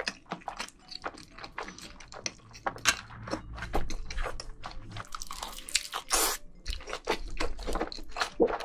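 Close-miked chewing of a mouthful of jjajangmyeon (black-bean-sauce noodles): wet, sticky smacking and many short mouth clicks in an irregular run, with a few louder squelches along the way.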